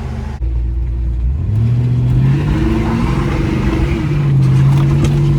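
1995 Ford Mustang GT's 5.0-litre V8 pulling away under acceleration, its engine note rising in pitch in two steps. The engine is running properly again after a new fuel pressure regulator cured its lean stalling.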